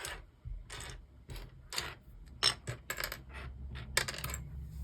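Small plastic LEGO pieces clicking and rattling against each other in irregular short knocks, as loose parts are sorted through by hand.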